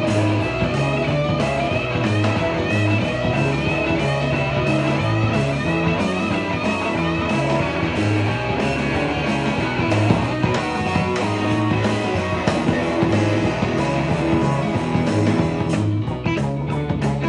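A live garage R&B band playing, with electric guitars over low, repeating bass notes. The sound thins out briefly near the end.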